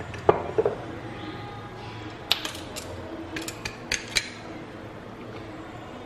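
Utensils knocking and clinking against a stainless steel mixing bowl as gram flour is spooned in: two ringing taps near the start, then a quick run of sharp clicks about two to four seconds in.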